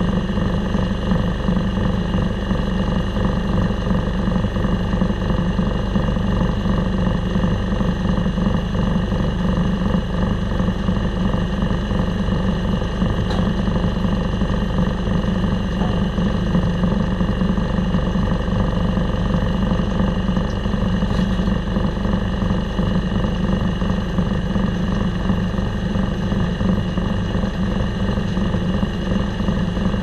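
Diesel engine powering a circle sawmill, running steadily at an even speed with no cut being made.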